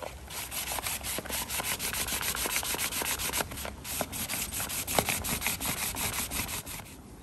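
Hand sanding block with 800-grit paper rubbed in quick back-and-forth strokes over the plastic intake manifold's port flange, smoothing down heat-melted plastic that stood proud of the sealing surface. The strokes stop shortly before the end.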